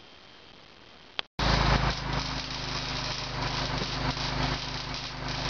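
After a quiet first second and a short click, electric arc welding cuts in: a loud, dense, steady crackle of the arc with a low electrical hum underneath.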